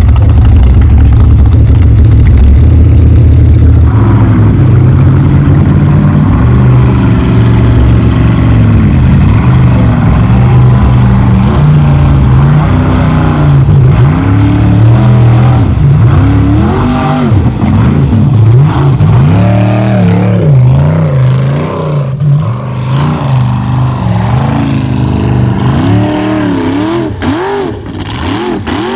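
Formula Offroad race truck engine revving hard, its pitch swinging up and down in quick repeated swells as the throttle is worked. Loud throughout, easing a little in the last few seconds.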